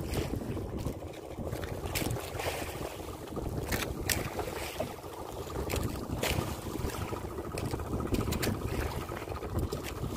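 Wind buffeting the microphone and sea water moving around a small outrigger fishing boat, with scattered sharp knocks and clicks from gear being handled in the boat.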